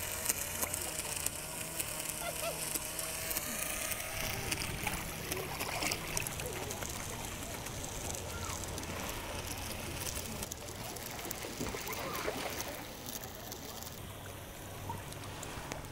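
Small electric motor and propeller of a homemade styrofoam toy boat running as it moves across the water, over a steady low hum and water lapping.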